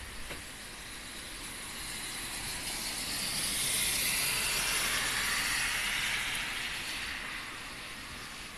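Heavy rain hissing steadily on a wet asphalt road. It swells louder for a few seconds mid-way, then eases back.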